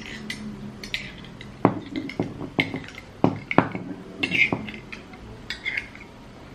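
Cutlery clinking and scraping as strawberry jam is spread on bread: a cluster of about seven sharp clicks and knocks through the middle, with short scrapes between them.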